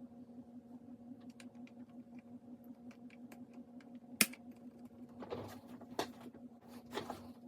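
Plastic clicks and rattles of Apple A1048 keyboard keys and parts being handled, with scattered light clicks, one sharp loud click about four seconds in, and short scraping sounds after it. A steady low hum runs underneath.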